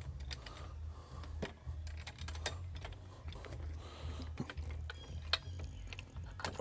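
Scattered light metal clicks and knocks from a chainsaw mill's quick-release depth clamps being loosened and its height posts slid to set the cutting depth, over a steady low hum.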